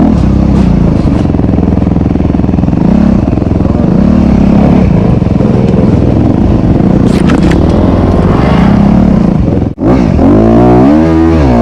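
2021 Honda CRF250RX's single-cylinder four-stroke engine running hard under race load. The sound drops out suddenly for a moment about ten seconds in.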